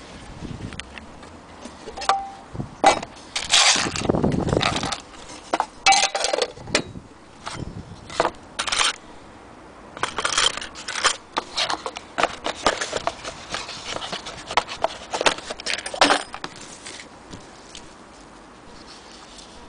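Irregular handling noise: sharp clicks and knocks mixed with scraping, rustling stretches, as an antique sewing machine's metal parts and its paper manuals are handled. The sounds thin out near the end.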